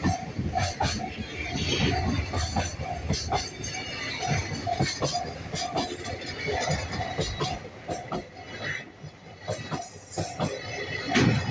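Japanese railway level-crossing bell ringing in a steady, repeated ding, with a train on the line, its wheels knocking over the rail joints.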